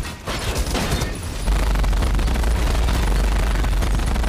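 Movie battle sound effects: rapid, continuous machine-gun fire from an armoured suit's mounted gun, over a heavy low rumble that grows louder about a second and a half in.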